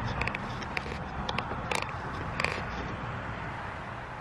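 Scattered light clicks and creaks from a handheld camera being handled while someone tries to zoom it, over a low steady hum.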